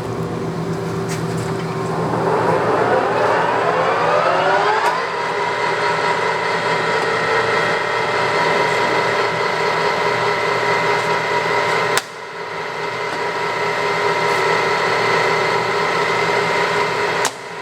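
Clausing Colchester lathe's geared headstock spinning up, its gear whine rising in pitch for about three seconds and then holding steady at top speed, about 890 RPM with the chuck fitted. A sharp click with a brief drop in level comes about twelve seconds in and again near the end.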